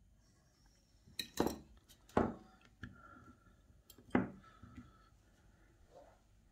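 Metal dental carving instruments clinking and knocking as they are handled and set down, about a second in, at two seconds and at about four seconds, with faint scraping of the carving in between.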